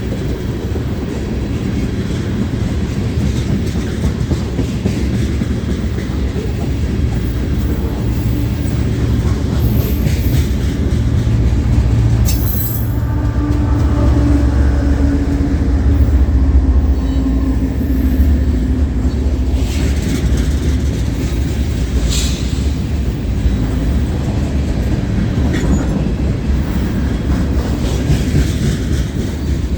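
A long freight train's cars rolling past with a steady low rumble of wheels on rail. A couple of brief high wheel squeals come about twelve and twenty-two seconds in.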